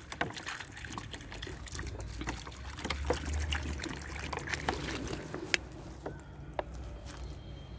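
Water poured from a plastic bottle, trickling and splashing into a plastic container on the ground; the pouring stops about six seconds in.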